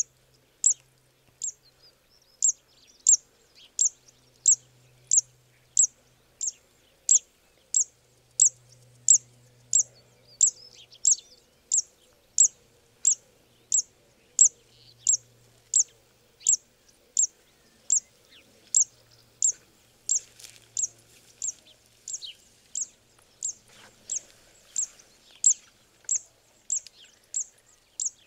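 Zitting cisticola singing its song: a long run of single sharp, high 'zit' notes repeated evenly, about two a second.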